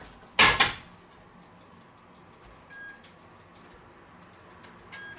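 A short loud noise about half a second in, then an OptiGrill contact grill giving two short, high electronic beeps about two seconds apart. The beeps are the grill's signal, with the bun toasting inside, just before it is switched off.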